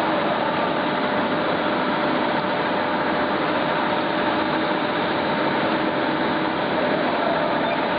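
Thread-cutting machine cutting a spiral groove into a long steel bar: steady machining noise, unchanging throughout, with a few faint held tones running through it.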